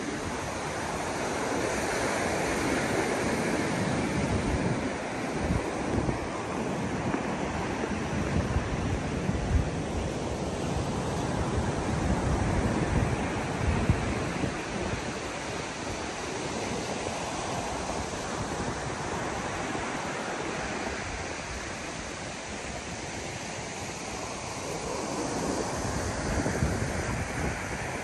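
Ocean surf breaking on a sandy beach, the wash rising and falling in slow swells, with wind rumbling on the microphone.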